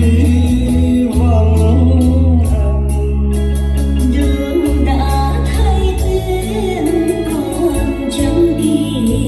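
A song with singing over heavy bass and a steady beat, played loud through a line-array stage PA system with a subwoofer.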